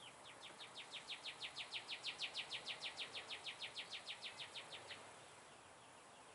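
A bird singing a rapid trill of short falling notes, about six a second, that swells louder and then fades, stopping about five seconds in.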